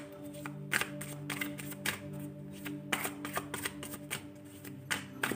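A tarot deck being shuffled by hand: irregular clusters of card snaps and rustles, about one every second. Soft background music with long held notes plays under it.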